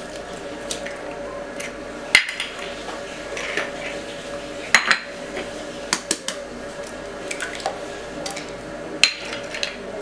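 Eggs cracked one after another against the rim of a mixing bowl: sharp cracks every couple of seconds, over a steady low hum.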